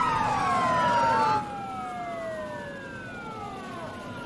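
Several emergency vehicle sirens wailing at once, their overlapping tones sliding down in pitch. Loud for about the first second and a half, then quieter.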